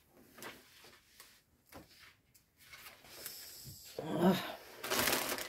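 Small plastic bags of diamond-painting drills being rummaged through and sorted. There are faint clicks at first, then louder rustling and rattling in the last second and a half.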